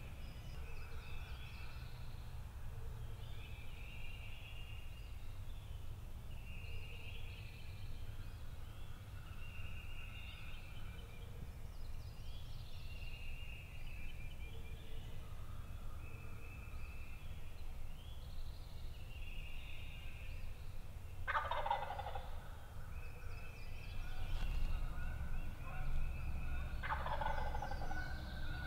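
Wild turkeys gobbling, calls coming again every couple of seconds, with two louder calls late on that sweep sharply down in pitch.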